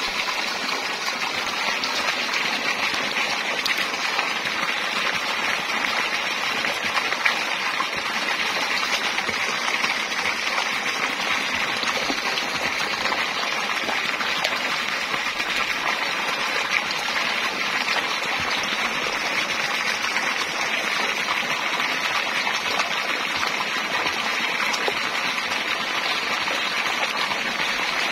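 A jet of water pouring into a river, gushing and splashing steadily with no let-up.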